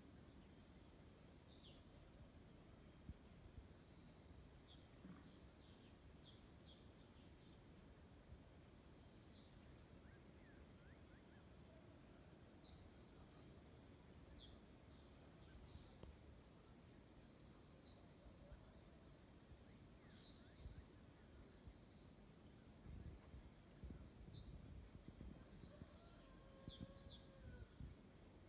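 Faint outdoor ambience: a steady high-pitched insect drone, with many short falling bird chirps scattered over it and a low rumble underneath.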